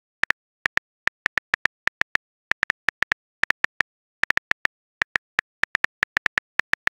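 Simulated phone keyboard typing sound: an irregular run of short, light clicks, one per keystroke, about four or five a second, as a text message is typed out.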